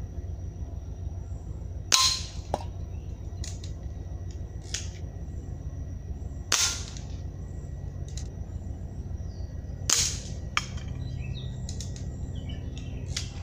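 Three airgun shots a few seconds apart, each followed about half a second later by a fainter click.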